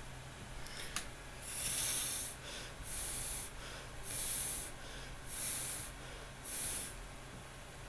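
A single sharp click, then five short hissing puffs of air, each about half a second long and about a second apart.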